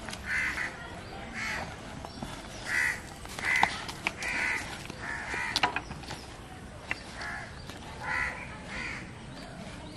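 Crows cawing, about ten short calls in loose runs with a lull in the middle.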